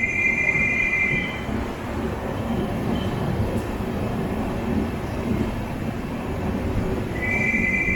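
Passenger train coach rolling slowly into a station: a steady rumble of wheels on track, with a high metallic squeal in the first second and a half and again about seven seconds in, as the train slows to stop.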